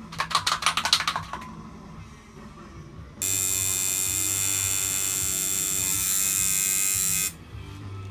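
A tattoo machine: a quick run of rapid clicks near the start, then a steady electric buzz for about four seconds that cuts off suddenly.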